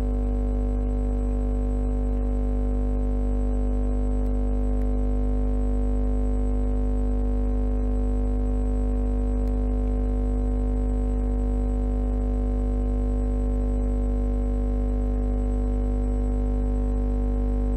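Background music: a steady synthesizer drone of held tones that does not change.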